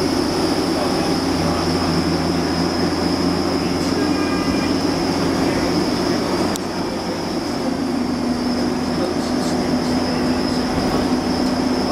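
Cabin noise inside a vintage single-deck bus under way: a steady engine drone and road rumble with a constant high whine. It eases slightly about seven seconds in.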